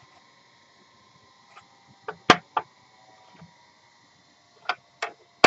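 A few short, sharp rubbing squeaks from sandpaper and gloved fingers working against the rim of a lacquered bowl. Three come close together about two seconds in and three more near the end.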